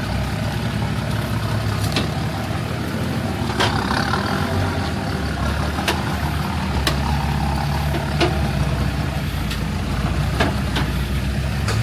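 Off-road four-wheel drive's engine running steadily at low revs as it crawls through a muddy, slippery section, with scattered sharp clicks and knocks every second or so.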